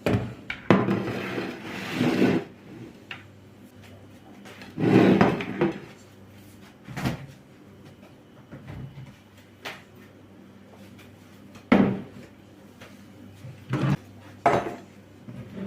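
Kitchenware being handled: several separate bouts of clattering and knocking of dishes, pots or utensils, with a low steady hum underneath.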